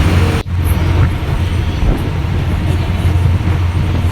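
Steady low rumble of a running vehicle, broken by an abrupt cut about half a second in before the rumble carries on.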